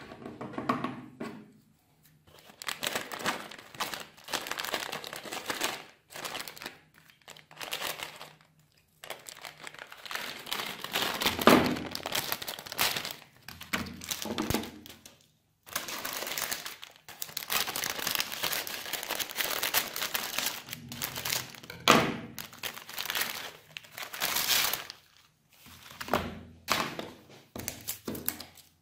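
Crinkly plastic wrapper of a pack of kağıt helva wafer sheets rustling in irregular bursts as it is handled and opened, with a few sharp knocks among them.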